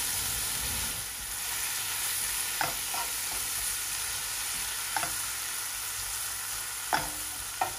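Butter and blended green seasoning sizzling in a frying pan while being stirred with a wooden spoon. The spoon knocks sharply against the pan a few times in the second half.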